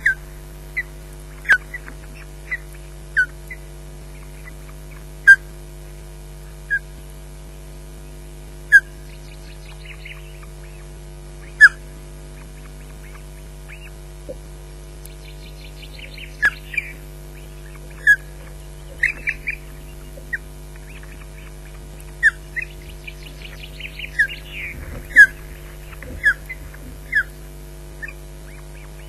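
Ospreys calling on the nest: a string of short, sharp whistled chirps, repeated irregularly and sometimes in quick runs, over a steady low electrical hum.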